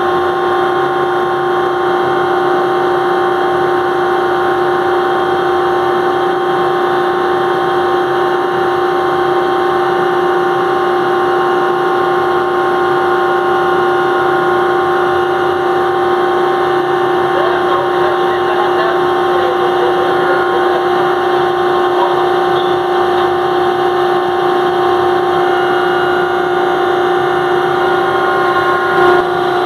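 Ship's crane motor switched on and running: a noisy, steady tone with overtones that holds the same pitch throughout.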